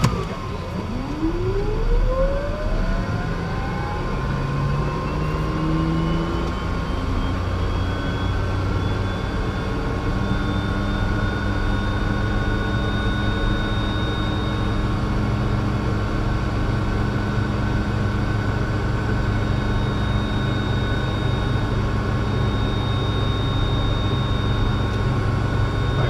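Piper Meridian M500's Pratt & Whitney PT6A turboprop being dry-motored by its starter, with fuel and ignition off, to flush heat out of the hot engine. A whine rises in pitch over the first ten seconds or so, then holds steady over a low rumble.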